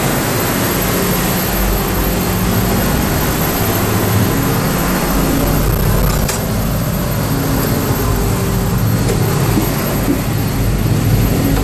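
Loud, steady machinery noise of a crew boat's engine room with its marine diesel engines running underway, a low engine hum under a dense mechanical din.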